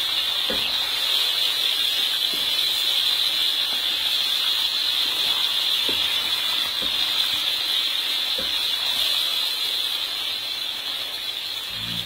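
Goat meat and satay skewers sizzling in sauce in a wok, a steady hiss, with a few light clicks of a spatula against the pan as it is stirred.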